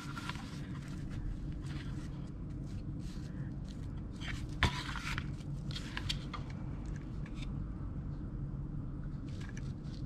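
Hands handling ribbon and craft pieces on a worktable: light rustles and small taps, with one sharper knock about halfway through, over a steady low hum.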